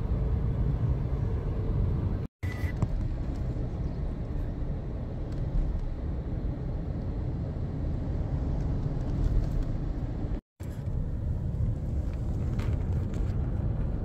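Steady low rumble of a car driving, road and engine noise heard from inside the cabin. It drops out twice for a split second.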